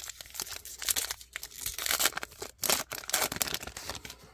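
Wrapper of a Topps Heritage baseball card pack crinkling and tearing as the pack is ripped open, in a dense run of crackles.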